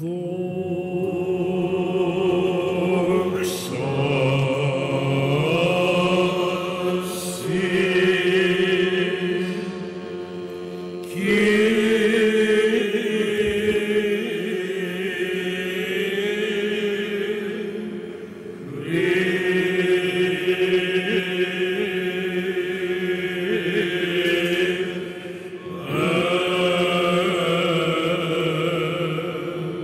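A choir of male chanters singing Byzantine chant in several long, drawn-out phrases, melody moving over a steady low held note.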